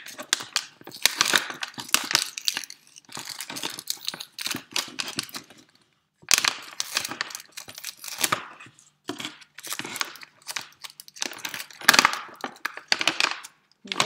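Foil-lined plastic snack pouch being torn open across the top and pulled apart, a continuous run of crinkling, crackling rustles with a brief pause about six seconds in.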